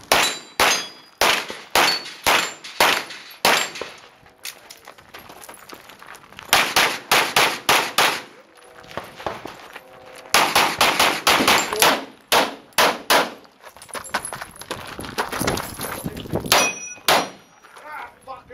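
Handgun shots in rapid pairs and short strings, with pauses of a second or two between strings, some followed by a metallic ringing.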